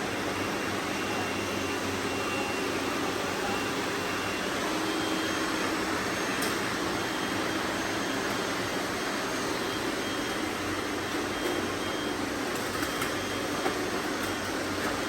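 Robot vacuum cleaners running: a steady whir of motors and brushes with faint high whines and an occasional light tick.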